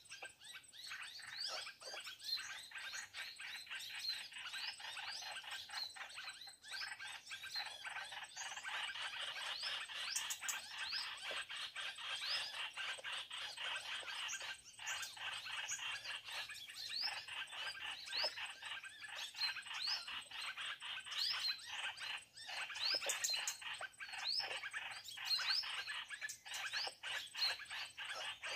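Birds chirping continuously, many short rising notes in quick succession over a dense background chorus.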